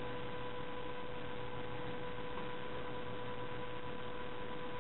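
Steady electrical hum with a thin high whine over an even hiss, unchanging throughout; the knotting of the strings makes no distinct sound.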